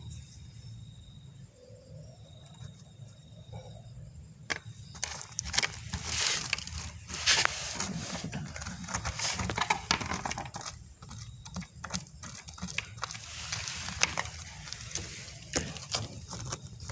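Handling noise: clicks, clinks and scraping rustles of objects being moved and searched through, starting about four seconds in after a quiet stretch.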